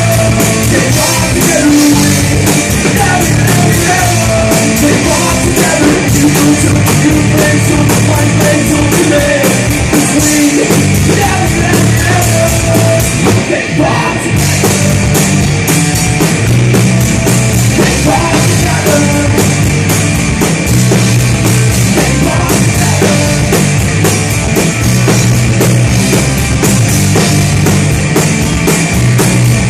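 Rock band playing live, loud, with drum kit and electric guitars driving steadily and a brief break in the cymbals about halfway through.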